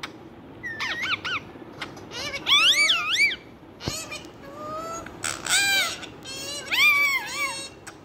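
Rose-ringed (ring-necked) parakeet calling: about four bursts of high, warbling calls that swoop up and down in pitch.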